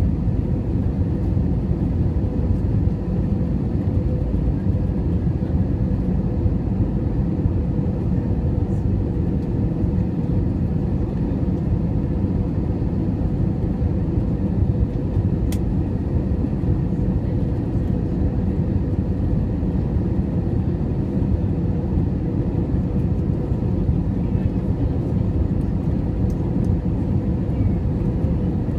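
Steady cabin noise of an Airbus A321 descending on final approach, heard from inside the cabin: a low rumble of the engines and airflow with a steady mid-pitched hum.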